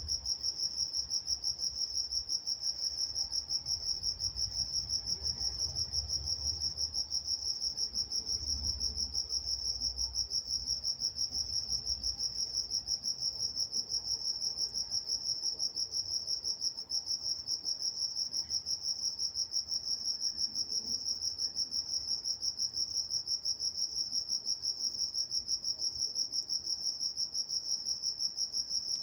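Crickets chirping at night in a steady chorus, a high, even pulsing chirp repeating several times a second without a break.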